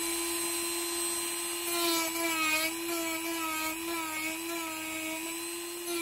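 Handheld rotary tool with a sanding drum running at high speed, a steady motor whine, sanding a white 3D-printed plastic frame; from about two seconds in its pitch wavers slightly and a gritty hiss rises as the drum bites the plastic.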